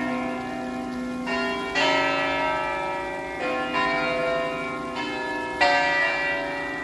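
Several church bells ringing together in a peal from a stone bell tower, fresh strokes at different pitches coming every second or so, each ringing on and overlapping the last.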